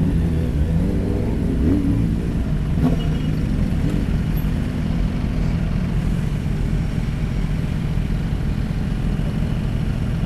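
Motorcycle engine running while riding, its revs rising and falling in the first couple of seconds and then holding steady.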